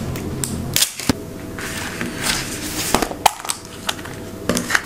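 Hard plastic toy capsule being twisted and pried open in the hands: a few sharp plastic clicks and snaps, the loudest about a second in and again just after three seconds, with handling rustle between.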